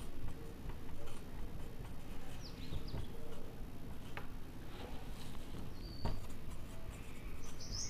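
Faint squeaks and light taps of a marker pen writing on a whiteboard. Near the end a bird starts a quick run of repeated high chirps.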